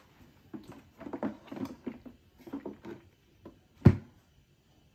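Plastic water tank of a Bissell carpet cleaner being handled and pressed into place: a run of light plastic clicks and rattles, then one sharp knock a little under four seconds in.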